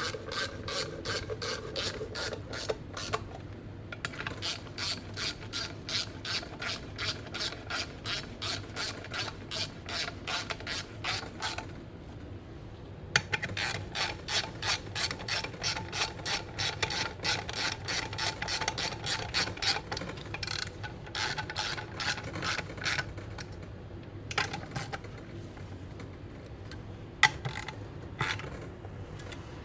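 Hand socket ratchet clicking in long runs of quick, even strokes, about three clicks a second, with short pauses between runs, as it tightens the compressor housing bolts on a Garrett TP38 turbocharger.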